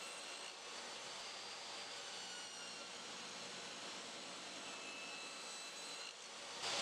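DeWalt table saw running steadily with a quarter-inch blade, cutting grooves in mahogany: a fairly faint, even motor and blade noise with a light high whine.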